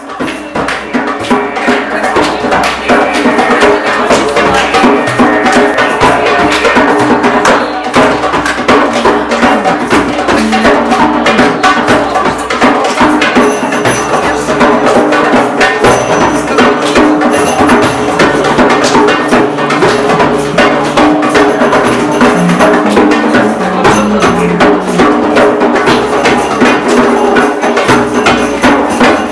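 Live ethnic music: hand-played congas keeping a dense rhythm over a steady didgeridoo drone and an electric bass line, fading in over the first few seconds.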